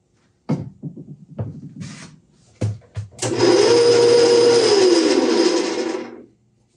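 Shenwai metal lathe: a few clunks as its levers and gears are worked, then, about three seconds in, the spindle starts and runs with a steady mechanical whir for about three seconds before stopping. The owner finds it a lot of noise for this machine and thinks it sounds like a couple of bearings in the gearing are shot.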